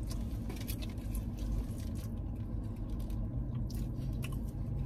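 Chewing and mouth sounds of fast food being eaten, with scattered small clicks and smacks, over a steady low hum inside the car.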